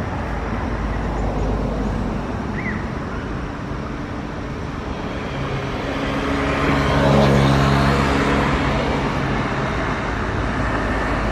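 A motor vehicle passing by, its engine growing louder to a peak about seven seconds in and then fading, over a steady outdoor rumble.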